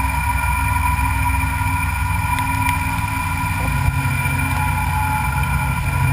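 Machine tool running steadily during metal machining: a continuous low hum with steady whining tones over it and a few faint ticks.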